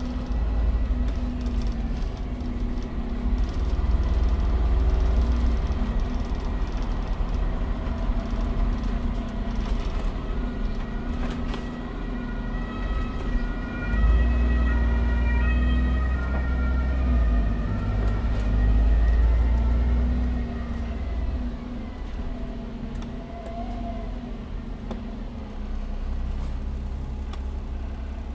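SOR NB12 city bus heard from inside while driving: a low engine rumble that swells twice, as under acceleration. For several seconds around the middle a high tone steps up and down between pitches.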